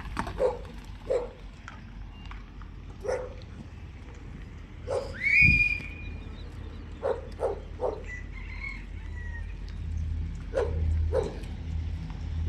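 A dog barking again and again in short single barks, spaced a second or two apart, with one louder, higher call that rises in pitch about five seconds in.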